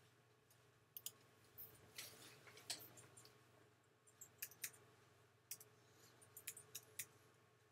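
Faint, irregular clicking from someone working a computer, about fifteen short clicks spread over several seconds, over a low steady hum.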